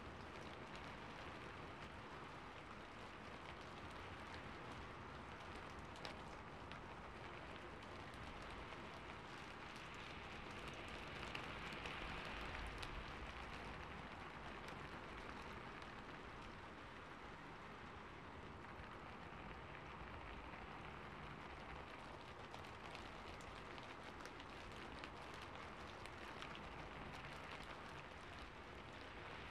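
Faint rain falling on a rooftop: a steady patter dotted with many small drop ticks, swelling a little about a third of the way through.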